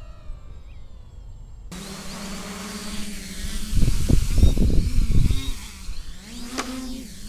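Large quadcopter's electric motors and propellers buzzing as it hovers close by, the pitch dipping and rising with throttle changes. About four seconds in, prop wash buffets the microphone with heavy gusts of low rumble for over a second.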